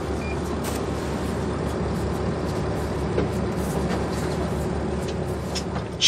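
Fishing boat's engine running steadily with an even low hum.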